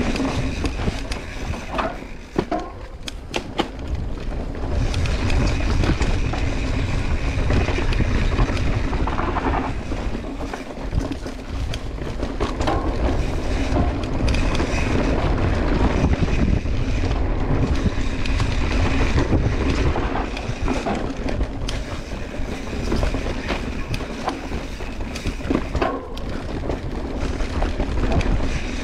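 Santa Cruz Hightower full-suspension mountain bike rolling down a dirt singletrack: steady rumble of tyres on rough ground, with scattered clicks and rattles as the bike goes over bumps.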